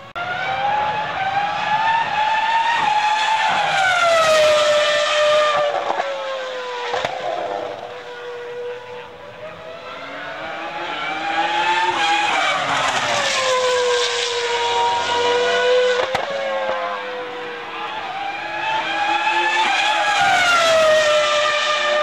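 Formula 1 cars' 3.0-litre V10 engines at high revs passing one after another. The high engine note rises and then falls as each car goes by, with three swells in loudness.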